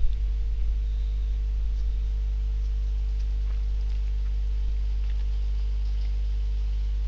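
Steady low electrical hum on the recording, with a few faint clicks.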